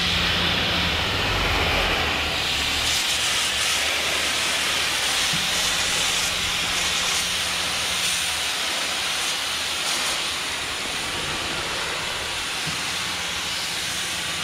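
Pressure washer spraying the hauled-out boat hull to blast off barnacles and fouling: a steady hiss of the water jet over a low machine hum.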